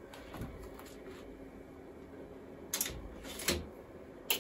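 A handful of short plastic clicks and knocks, growing louder in the second half, as the iMac G3's CD drive tray and install disc are handled while the disc is ejected.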